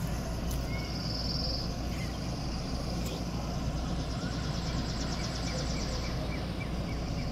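Steady low outdoor rumble, with faint high bird chirps over it: a short buzzy note about a second in and a quick trill in the middle.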